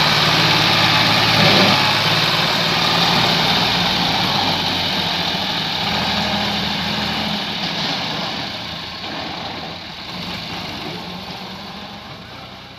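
Massey Ferguson tractor's diesel engine running under heavy load as it pulls a loaded trolley; the engine sound steadily fades over the second half as the tractor moves away.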